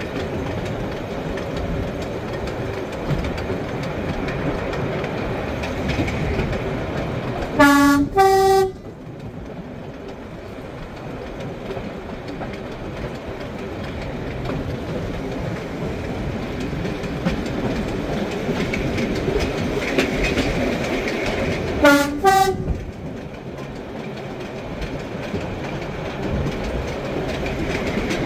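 Class 108 diesel multiple unit running along the line, wheels clicking over the rail joints. Its two-tone horn sounds twice, about 8 seconds in and again about 22 seconds in, each time a short low note followed by a higher one.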